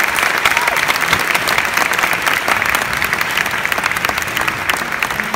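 Theatre audience applauding, many hands clapping steadily.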